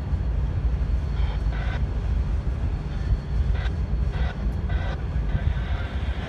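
Diesel locomotives of an approaching freight train, a steady low rumble, with brief higher-pitched sounds coming and going over it.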